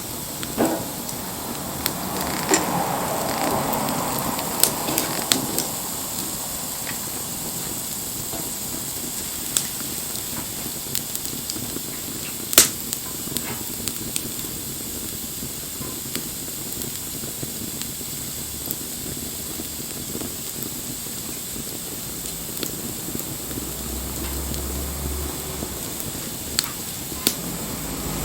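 Wood fire crackling and hissing, with scattered sharp pops, the loudest about halfway through. A low drone comes in near the end.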